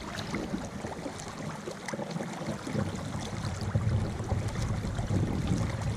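River current rushing and lapping around a kayak, growing louder through the second half, with scattered small clicks and splashes.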